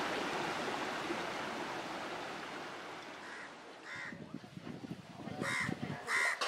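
Running water from a river or stream hisses steadily and fades out over the first few seconds. Then crows caw about four times, the last two louder.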